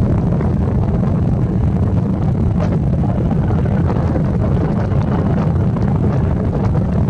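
Steady low rumble of military aircraft on an airfield, a C-17 jet transport on the runway and a Royal Navy helicopter lifting off, mixed with wind buffeting the microphone.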